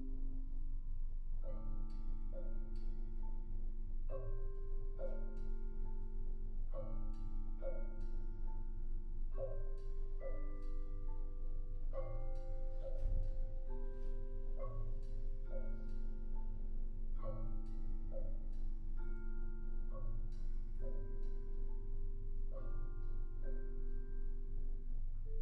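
Two vibraphones and two marimbas playing together: ringing vibraphone chords that change every second or two over a steady pulse of mallet strokes. A single low thump comes about halfway through.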